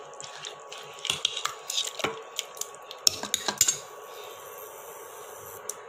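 Metal spoon scraping and clinking against the inside of a pressure cooker while chicken is stirred into a thick masala gravy. The clicks come irregularly over the first four seconds, then give way to a faint steady hiss.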